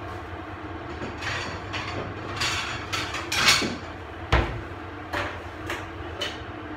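Plates and a knife being handled on a kitchen counter: a string of knocks and clatters, the loudest about three and a half seconds in, with a deep thump just after four seconds, over a steady low hum.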